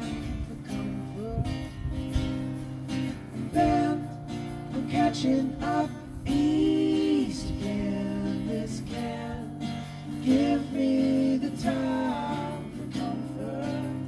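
Live acoustic folk song: a strummed acoustic guitar and a mandolin accompany male singing, with two voices singing together at times.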